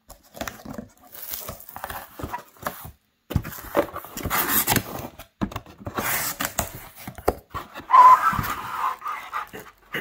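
Cardboard carton being opened by hand: tape and flaps pulled and molded pulp packing scraped and rustled in irregular bursts, with a louder, squeaky scrape about eight seconds in.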